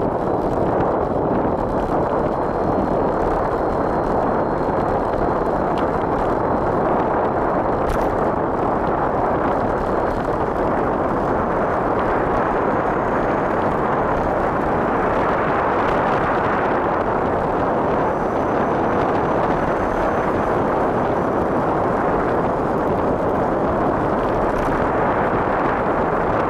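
Wind buffeting the camera's microphone on a fast bicycle descent: a loud, steady rushing noise with no let-up.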